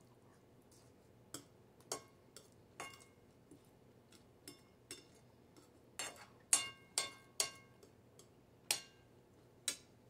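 Metal spoon clinking against a dinner plate while eating: a dozen or so sharp, lightly ringing clinks at uneven intervals, loudest and closest together a little past the middle.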